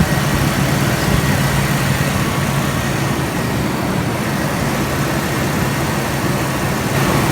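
1993 Chevy S10 Blazer's 4.3 V6 idling steadily.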